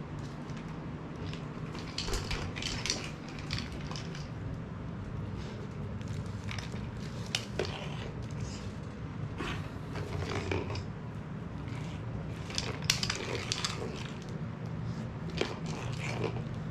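Siberian husky crunching dry food from a treat-dispensing ball toy: irregular sharp crunches every second or so.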